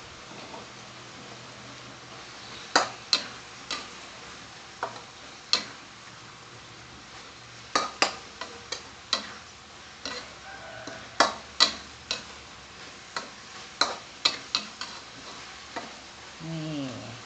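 Metal spatula scraping and clanking against a steel wok as minced pork and holy basil are stir-fried, over a steady sizzle. The clanks come irregularly, about twenty of them, beginning a few seconds in.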